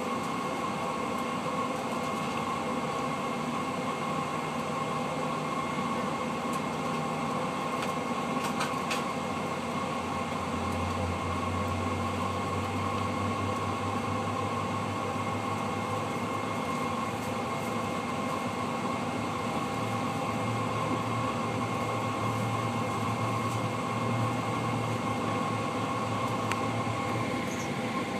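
Rolls-Royce RB211-524H turbofans of a Boeing 747-400 running at taxi power, heard inside the cabin over the wing: a steady rushing hum with several thin, steady whining tones. A deeper hum joins about ten seconds in.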